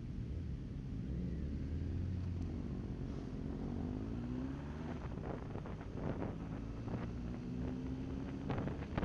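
Motorcycle engine running on the move, its pitch sliding up and down, with wind noise on the microphone. From about halfway through, sharp knocks or buffets break in over the engine.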